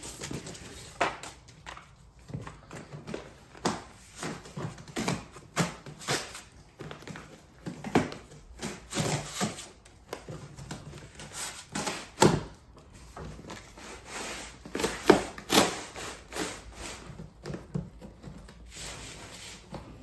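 A dog rummaging through a broken cardboard box of dog food and treats: irregular rustling, scraping and knocking, with the sharpest knocks about twelve and fifteen seconds in.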